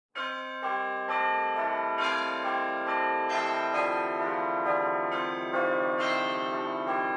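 Chiming bells as an intro jingle: a run of struck bell notes, a new one about every half second, each ringing on under the next.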